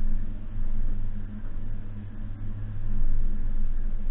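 Suzuki Jimny's 1.5-litre four-cylinder petrol engine running under way off-road, a steady low drone mixed with road and driving noise, swelling slightly about three seconds in.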